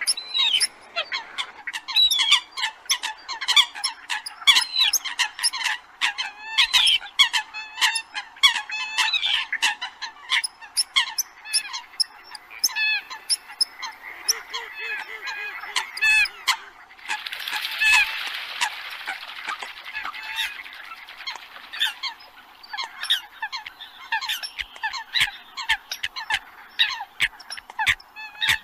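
Eurasian coots calling: many short, sharp, honking calls, rapid and overlapping like a flock. About seventeen seconds in, a few seconds of hiss-like rushing noise rises under the calls.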